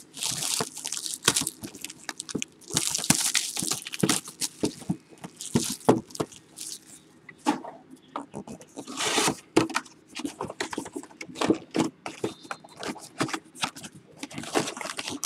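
A sealed football trading-card box being unwrapped and opened by hand: plastic wrap crinkling and tearing, cardboard scraping, and many small clicks as the packs inside are handled.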